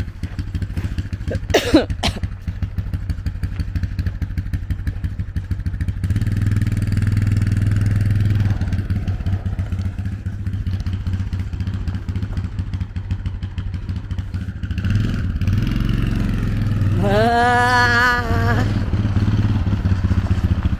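ATV engine running with a steady low drone, getting louder about six seconds in.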